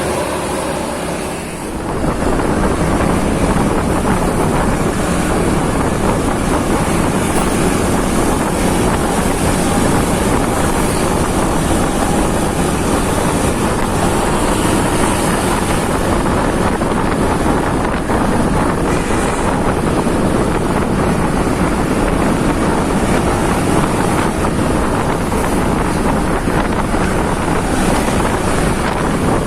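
Steady vehicle rumble with wind buffeting the microphone.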